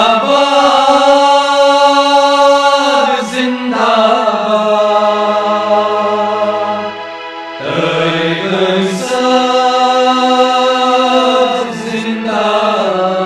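A chant-like song with long held vocal notes over music, sung in phrases of about four seconds.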